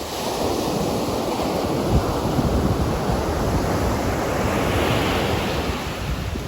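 Ocean surf: a wave breaking and washing up the beach, its hiss swelling about five seconds in and then easing, with wind rumbling on the microphone.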